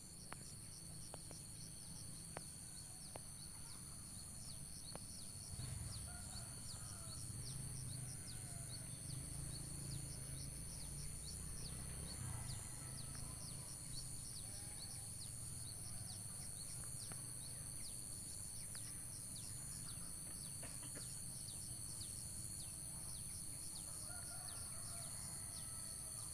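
Rural outdoor ambience: chickens cluck and crow now and then over a steady, high-pitched buzzing chorus, with a low rumble underneath.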